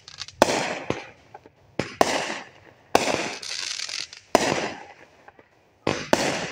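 Aerial fireworks bursting overhead: about five sharp bangs, roughly a second apart, each followed by a hiss that fades over about a second.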